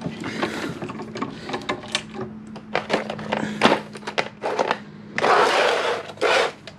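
Socket ratchet clicking in quick, uneven strokes as it cranks up a screw-type motorcycle lift stand with a 22 mm socket. Two louder rasping bursts come near the end.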